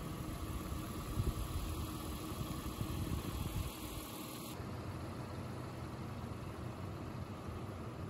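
Steady rushing noise of river rapids, with wind buffeting the microphone in low gusts between about one and four seconds in.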